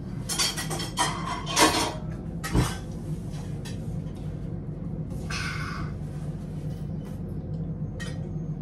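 Spoons clinking and scraping against soup bowls at a table, with a few sharp clinks in the first three seconds over a low steady hum.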